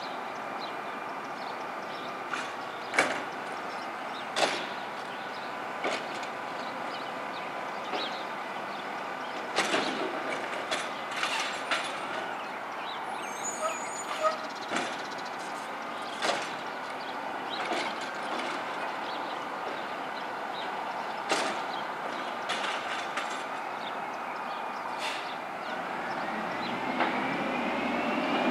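Automated side-loader garbage truck working a recycling route: a steady engine and hydraulic drone broken by sharp bangs and clanks every second or two as its arm dumps carts into the hopper. A squeal that rises and falls comes near the end.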